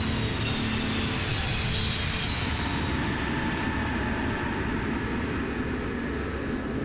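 Lockheed C-5 Galaxy's jet engines during the landing rollout: a steady rushing noise with high whining tones that fall in pitch over the first couple of seconds.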